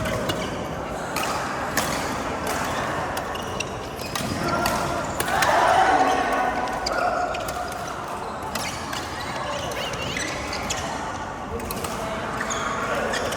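Badminton rally in a hall: sharp racket strikes on the shuttlecock every second or so, with players' voices, loudest about five to seven seconds in.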